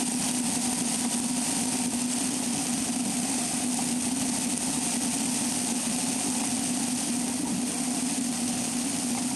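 Vehicle running along the road, a steady engine hum with road and air hiss as picked up by a camera mounted on the vehicle's roof.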